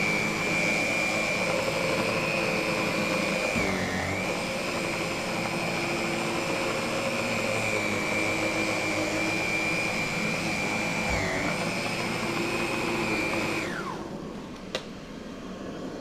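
Sauber Excellence canister vacuum cleaner running with its power head on the carpet: a steady high whine that dips briefly in pitch twice. Near the end the whine slides down and the machine drops to a quieter, lower running, followed by a single click.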